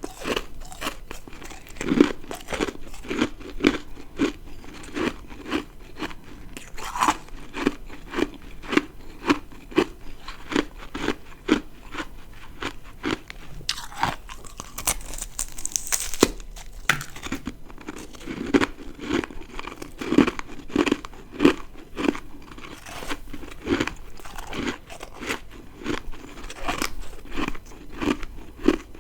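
Close-miked crunching of ice being bitten and chewed in a steady rhythm of about one to two crunches a second, with a sharper, brighter crunch about halfway through.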